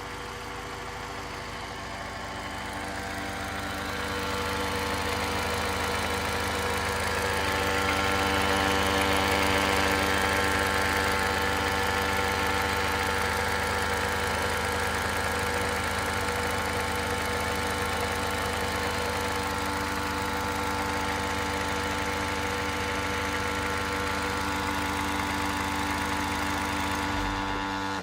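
Toyota 8AR-FTS 2.0-litre turbocharged four-cylinder idling, with an abnormal steady electric-motor-like hum ('buun') coming from the left side of the engine bay. Near the end the engine is switched off; the low engine sound stops first and the hum lingers for about a second before dying away.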